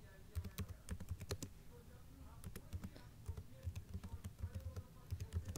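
Keystrokes on a computer keyboard as text is typed: quick, uneven clicks, each with a dull thud, coming in short runs with brief pauses.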